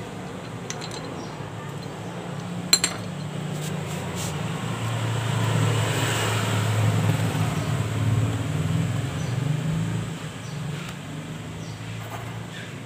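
A few sharp metallic clinks of hand tools, a socket knocking against metal, the loudest about three seconds in, over a steady low hum. From about five seconds, vehicle noise swells up and fades away again by about ten seconds.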